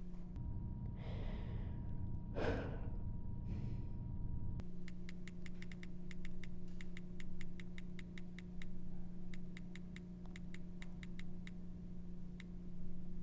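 A person sighs heavily, twice, over a steady low hum. Then comes a long run of quick, uneven clicks, like fingers typing on a computer keyboard, with short pauses between bursts.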